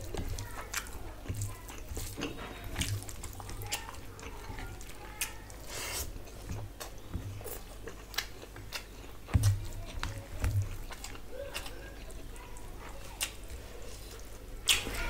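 Close-miked eating sounds: fingers squishing and mixing rice with curry, with wet chewing and lip-smacking clicks, and two dull thumps a little past halfway.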